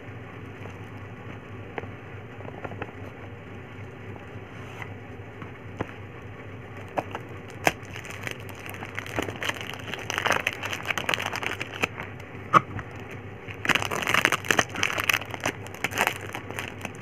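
A cardboard perfume box being opened by hand, then the bottle's clear plastic packaging being handled: scattered small clicks and scrapes at first, growing into close, dense crinkling about three seconds before the end.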